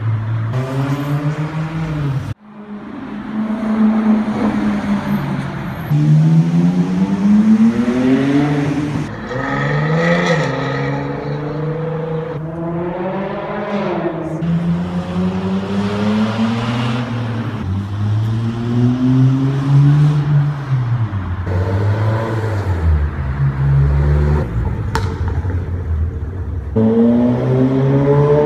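Loud car exhausts accelerating hard along a city street: one engine after another, each note climbing through the gears, with abrupt breaks between passes.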